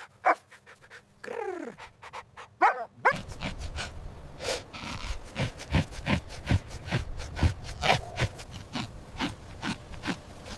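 A dog barks a few short times, the calls sliding down in pitch. About three seconds in, a continuous run of quick, short panting or snuffling sounds starts over a low rumble and goes on.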